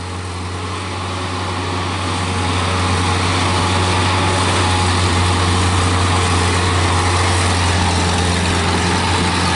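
Bobcat S185 skid-steer loader's diesel engine running as the machine pushes a telephone pole toward its hole, getting louder over the first few seconds and then holding steady.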